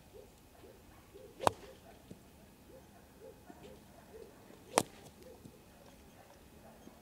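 Two sharp cracks of a golf club striking a ball off the grass, about three seconds apart.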